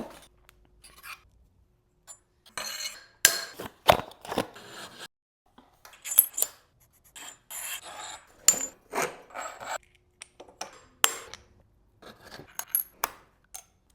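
Metal clinks, taps and scrapes of bike fork parts and hand tools being handled during a mountain bike fork swap, in short separate bursts with silence between them.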